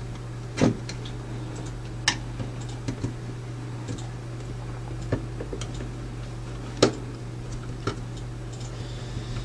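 Scattered clicks and light metal taps of a screwdriver working the screws of a switch button's mounting bracket in a metal amplifier chassis, over a steady low hum.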